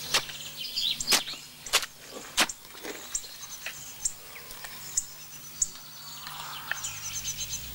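A hoe blade striking ploughed soil in a run of uneven knocks, with small birds chirping in the background.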